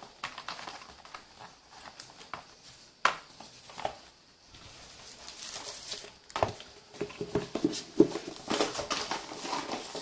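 Hands handling a cardboard box and its inner tray: scattered light knocks and scrapes, then denser rustling of a wrapping sheet in the second half, with a sharper knock about eight seconds in.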